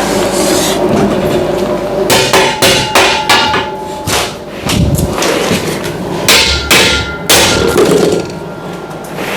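Hammer blows on metal, a run of irregular sharp strikes about one or two a second, several leaving a short metallic ring.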